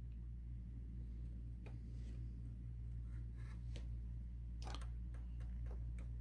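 A few faint, scattered clicks and ticks of small parts being handled as the coupler spring is worked onto its hook on a model train box car, over a steady low hum.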